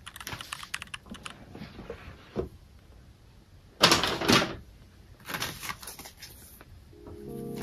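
Hands handling a cardboard laptop box: light taps, clicks and rustles, with a loud scraping swish about four seconds in as the lid comes off, then the rustle of paper leaflets being picked up.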